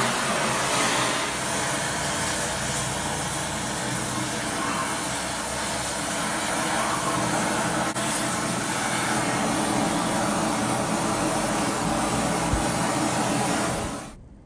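A blacksmith's forge running with a steady hissing roar and a faint low hum, cutting off suddenly near the end.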